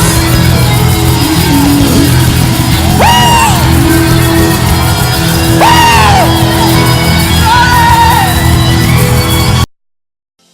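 Loud worship music with voices shouting over it, two long rising-and-falling shouts standing out. The sound cuts off suddenly near the end.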